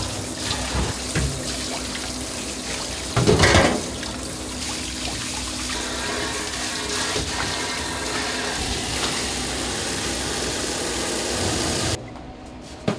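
Water running steadily from a kitchen tap, with a brief louder splash or clatter about three seconds in; the sound cuts off suddenly near the end.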